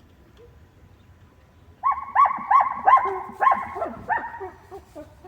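A dog barking in a quick run of about six barks, starting about two seconds in and trailing off quieter.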